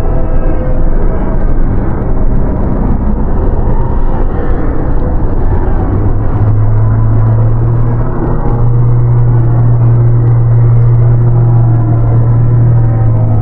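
Dark-ambient horror soundscape: a loud, dense low rumble, joined about six seconds in by a steady low droning tone that holds on.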